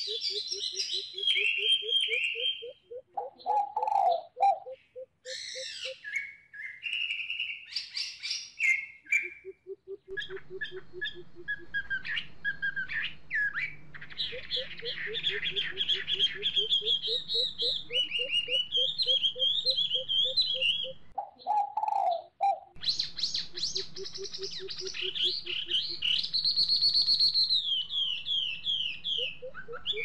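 Greater coucal's deep, evenly repeated hooting notes in several long runs, each run rising slightly in pitch, with high chirping and trilling from other birds over them.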